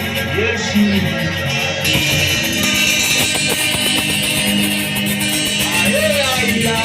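Live worship music with guitar, held chords and a steady sound, with voices singing or praying over it at times.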